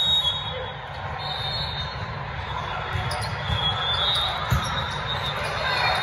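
Indoor volleyball rally in a large echoing hall: a few thumps of the ball being hit and short high squeaks of sneakers on the court flooring, over a steady hum of crowd chatter.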